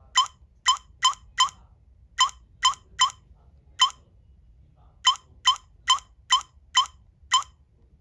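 Touch keypad of a HOMSECUR LD02-4G alarm panel beeping once for each key press: fourteen short beeps in quick runs of two to six, with a pause of about a second in the middle.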